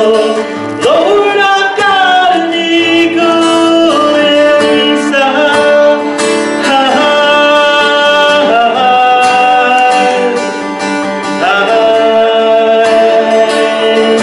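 A man singing a slow gospel song in long held notes that scoop up into pitch, accompanying himself on a strummed acoustic guitar.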